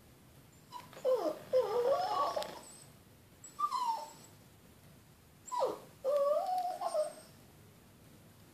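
A dog whining: three spells of high, wavering cries that slide up and down in pitch, about a second in, a short one near four seconds, and a longer one from about five and a half seconds.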